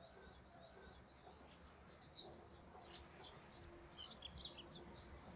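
Faint birdsong outdoors: small birds chirping and twittering in quick short calls, busiest about three to four and a half seconds in, over a low background hush.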